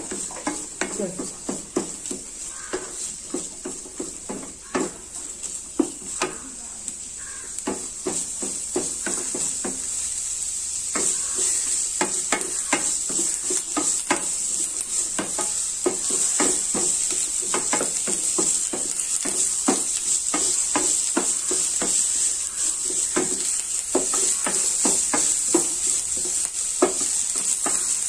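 Chopped onions, green chilli and curry leaves sizzling in oil in a steel pan while a wooden spatula stirs them, scraping and knocking against the pan several times a second. This is the onions being sautéed on low heat until translucent. The sizzle grows louder about a third of the way in.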